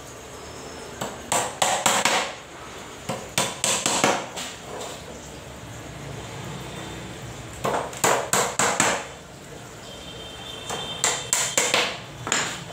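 Hammer striking the slats of a small wooden ramp, in four quick runs of blows with pauses between.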